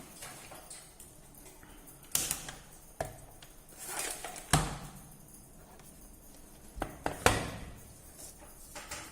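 Handling noises from work on a smartphone's parts: a few sharp clicks and taps, the loudest about halfway through and again near the end, with short scraping swells between.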